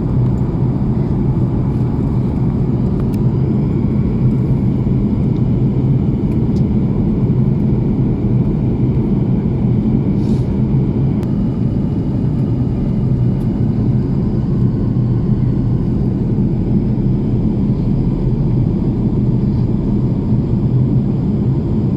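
Steady low rumble of an airplane, holding an even level without rising or falling.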